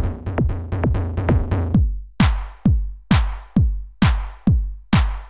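Electronic intro music built on a drum machine: a fast roll of kick-drum hits falling in pitch, then a steady beat of about two kicks a second, each topped with a hissing cymbal.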